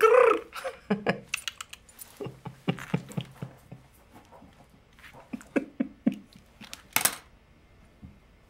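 A man breaking down crying: a loud sob at the start, then a run of short choked whimpers and catches of breath, and a sharp sniffling intake of breath about seven seconds in.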